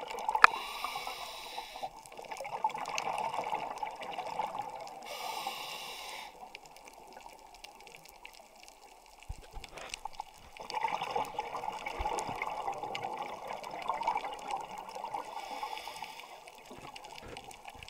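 Muffled water noise from a camera filming underwater: water sloshing and rushing around the camera, swelling and fading, with a quieter stretch about halfway through and a few sharp clicks.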